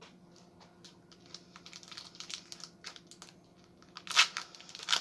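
Foil wrapper of a Pokémon booster pack crinkling and being torn open: light crackling, then two louder short rips near the end.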